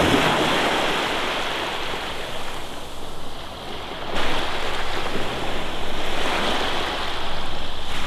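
Small waves breaking and washing up a sandy beach, the surf swelling and easing, with wind rumbling on the microphone.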